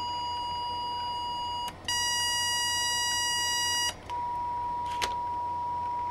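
Audio function generator kit putting out a steady tone of about 1 kHz, heard through headphones, as its waveform button is pressed: the tone cuts out briefly about two seconds in and again about four seconds in, changing its timbre each time, and ends as a pure, smooth tone. A faint click about five seconds in.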